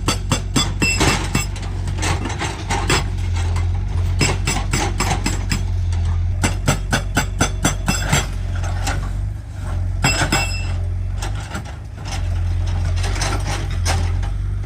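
Excavator engine running with a steady low hum, under a fast, even series of sharp knocks and rattles at about four to five a second.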